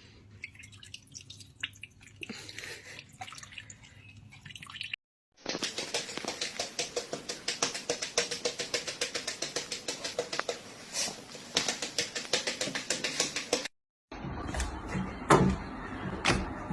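Quick rhythmic splashes of water, several a second, in a run of about eight seconds that starts and stops abruptly at cuts.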